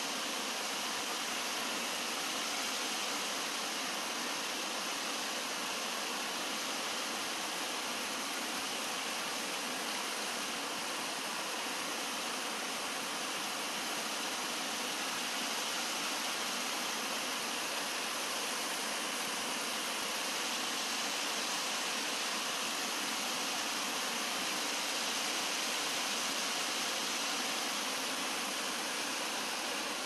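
Shallow stream water rushing over rocks and small rapids, a steady, even rush of flowing and splashing water.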